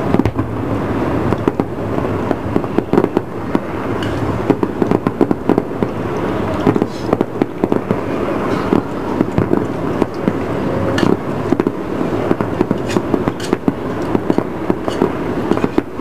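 Fireworks display going off: a dense, unbroken run of many overlapping bangs and crackles.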